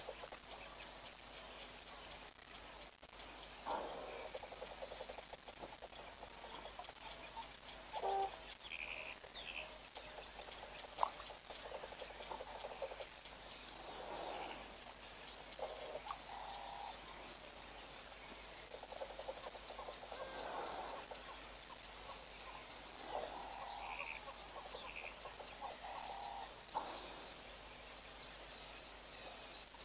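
Insect chirping steadily: a high, even chirp repeated in a regular rhythm, alternating between two close pitches. A few faint, short calls sound now and then beneath it.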